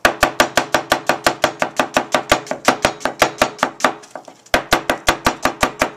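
Chef's knife slicing a red onion into thin slices on a plastic cutting board. The blade knocks on the board in a fast, even rhythm of about five or six strokes a second, with a brief pause about four seconds in.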